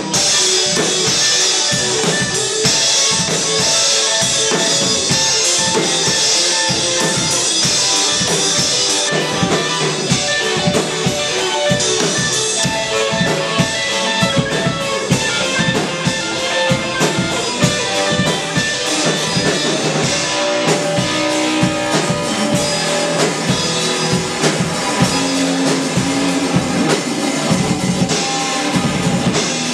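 Live rock band playing an instrumental passage: two electric guitars through amplifiers over a drum kit. A bright wash of cymbals rides over the first nine seconds or so, then eases while the drums keep driving.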